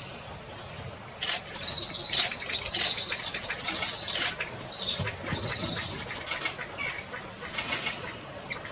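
A bird giving a loud, high, rasping call for about four seconds, starting just over a second in, with fainter chirps before and after.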